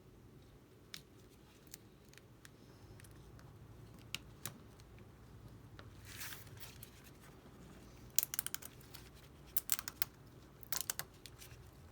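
Small sharp clicks and taps of parts and tools being handled while an iPad home button is fitted into a replacement screen, scattered at first, then in quick clusters of several clicks in the second half, with a short rustle about six seconds in.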